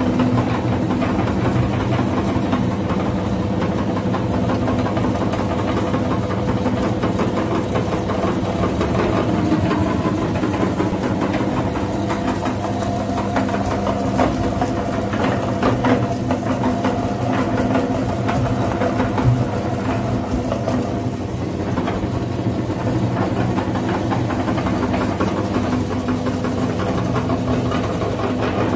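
Belt-driven electric meat grinder running steadily with a low hum, its auger crunching and crackling as it grinds brittle pieces of coloured chalk into crumbs.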